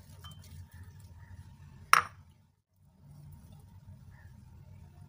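A single sharp clink against a glass mixing bowl about two seconds in, over a faint steady low hum.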